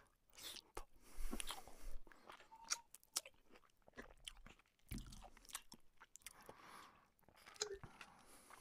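Close-miked hand-eating of luchi with chicken curry: fingers working bread into the curry and chewing, heard as faint, scattered wet smacks and clicks.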